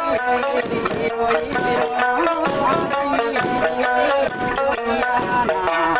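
Okinawan eisa music: sanshin and singing over taiko drums.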